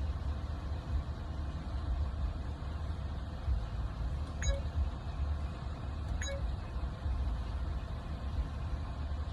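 Low, steady rumble of a car engine idling, heard from inside the cabin, with two faint short beeps about four and a half and six seconds in.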